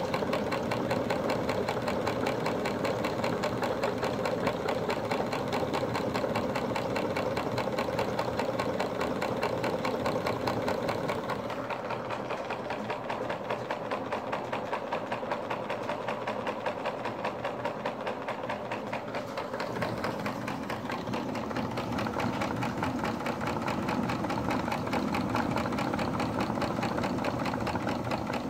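Four-cylinder model live steam engine running steadily, its rapid even beat of strokes and clicking valve gear going on without a break; somewhat quieter for a stretch in the middle.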